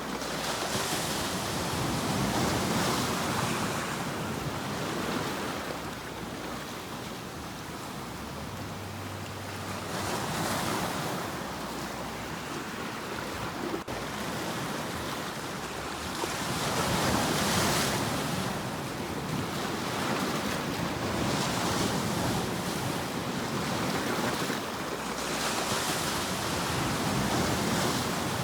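Sea waves breaking, the surf swelling and ebbing every few seconds in a steady rushing wash.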